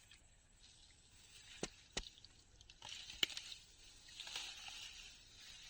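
Faint sloshing and squelching of shallow drain water and mud being worked by hand, with a few sharp clicks.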